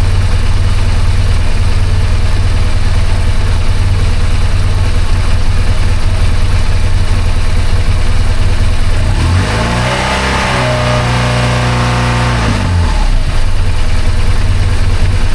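BMW R1200GS flat-twin boxer engine idling steadily, its throttle bodies freshly synchronized. About nine seconds in the revs rise, hold for about three seconds, then drop back to idle.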